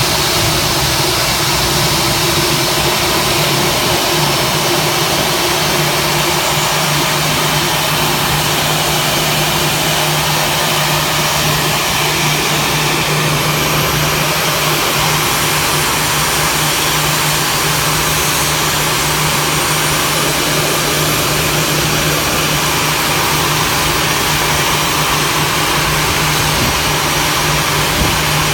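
Airbus A319's jet engines running during engine start, a loud, steady rumble with a constant low hum underneath. A faint high whine rises about 19 seconds in.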